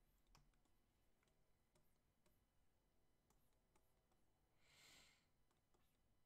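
Near silence: room tone with faint scattered clicks, and a brief soft hiss about five seconds in.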